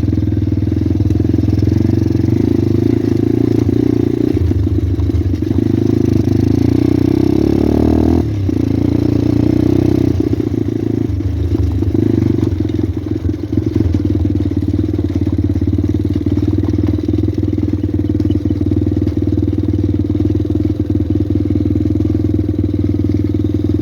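Pit bike engine running while riding, steady throughout, with the revs climbing and then dropping off suddenly about eight seconds in.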